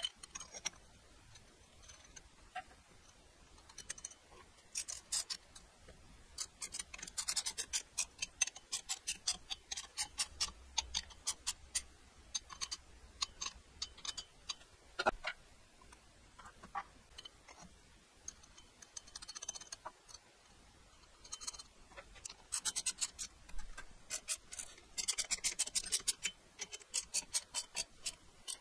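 Ratchet wrench clicking in several quick runs as it turns the finned exhaust pipe nut on a motorcycle engine's cylinder head, with a single knock about halfway through.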